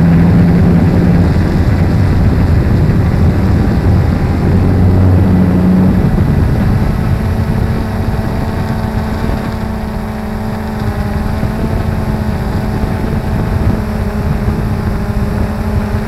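Quadcopter's electric motors and propellers humming steadily as picked up by the on-board camera, with wind rush over it. The pitch of the hum shifts about six seconds in as the motors change speed, and the sound eases off slightly after that.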